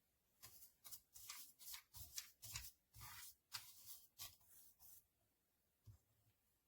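Faint rustling and scraping of something being handled, in a quick run of short strokes over about four and a half seconds, followed by a single soft knock.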